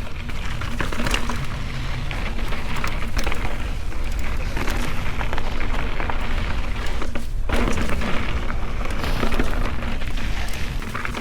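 Mountain bike riding a rocky dirt trail: tyres rolling and crunching over dirt and stones, with frequent clicks and rattles from the bike and rumbling wind on the microphone. The noise drops briefly about seven seconds in.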